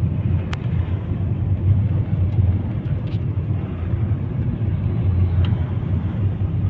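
Steady low road and engine rumble heard inside the cabin of a moving car, with a few faint clicks.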